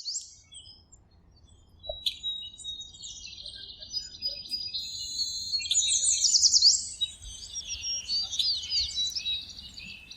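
Several birds chirping and singing, with fast trills and quick rising and falling whistles that grow busier and louder about five seconds in.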